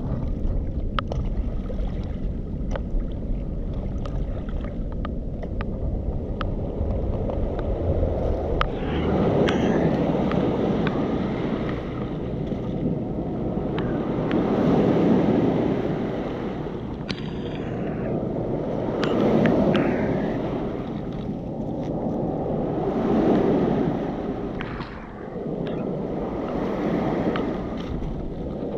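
Waves washing in on a stony foreshore, swelling and falling back about every four seconds from about nine seconds in. Before that a low rumble of wind on the microphone, with small scattered clicks.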